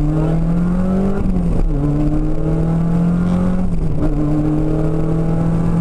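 Seat Ibiza 16V rally car's four-cylinder engine heard from inside the cabin, pulling hard with its pitch climbing. The pitch drops sharply twice, about a second and a half in and near four seconds in, as it shifts up a gear, then climbs again.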